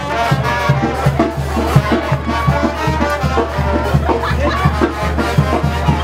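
A brass band playing lively music over a steady beat of drum and bass notes.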